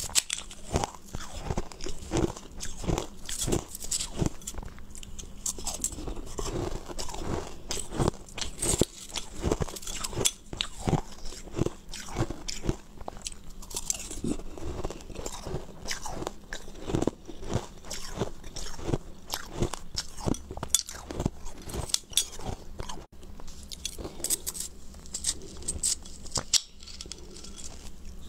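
A person biting and chewing coloured ice chunks and shaved ice: an irregular run of sharp, brittle crunches, several a second.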